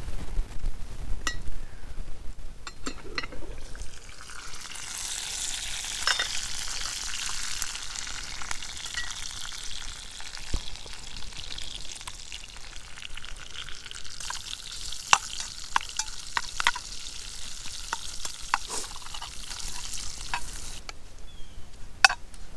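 Bacon sizzling as it fries, with scattered sharp clicks. The sizzle swells about four seconds in and cuts off suddenly near the end.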